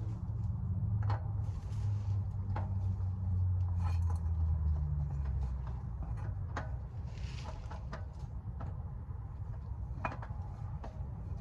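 Light clicks and knocks of a new oil filter being handled and threaded on by hand, over a steady low hum that eases after about five seconds.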